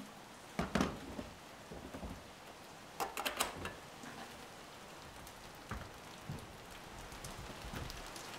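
Steady rain falling, broken by a few short knocks and clatters about a second in and again around three seconds in.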